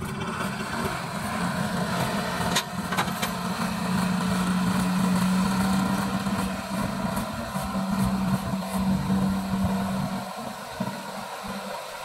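Diesel engine of a small river ferry running with a steady drone as the vessel comes in to the bank, dropping off about ten seconds in. Two sharp knocks sound a few seconds in.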